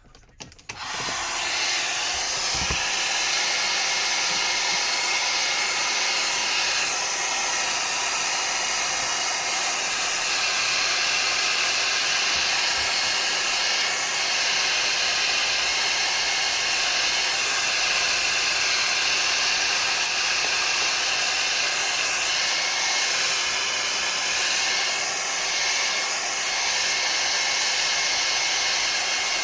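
Hair dryer blowing steadily, switched on about half a second in. It is heating the phone's back cover to soften the adhesive before prying.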